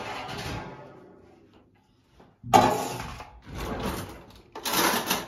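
A kitchen cutlery drawer is pulled open with a sudden loud rattle about two and a half seconds in, followed by more clattering of cutlery in the drawer.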